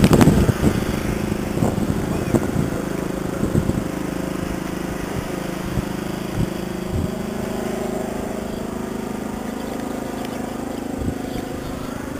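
A truck engine idling steadily, with a few faint knocks along the way.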